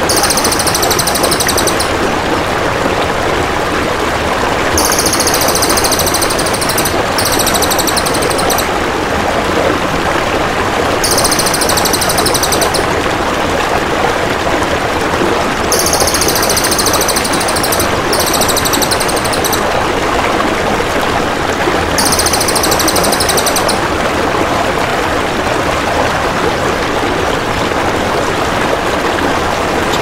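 Cililin song: seven short, very high, rapid trilling phrases of one to two seconds each, spaced a few seconds apart and ending about 24 seconds in, over a steady rush of flowing water.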